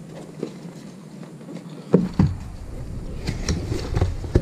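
A cardboard shipping box being opened by hand: two knocks about two seconds in, then the flaps and the packed contents rustle and crackle as they are handled.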